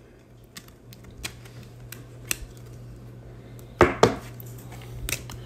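Trading card being slid into a rigid plastic top loader and handled on a table: scattered small clicks and plastic taps, with two sharper knocks about four seconds in.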